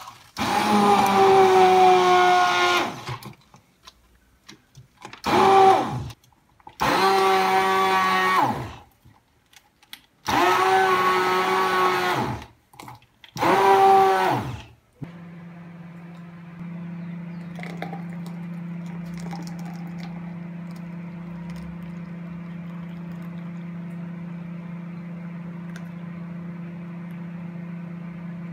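Handheld immersion (stick) blender blending cucumber pieces in lemon juice in a tall beaker. It runs in five pulses of motor whine over about the first fifteen seconds, each winding down in pitch as it is released. A steady low hum follows for the rest.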